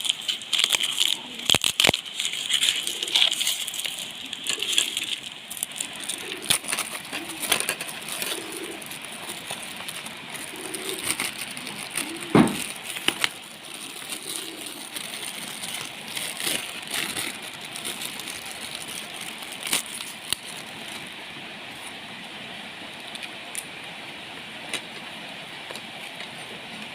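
Small board books and their packaging being handled: scattered clicks, taps and rustles over a steady background hiss, busiest in the first several seconds, with one louder knock about twelve seconds in.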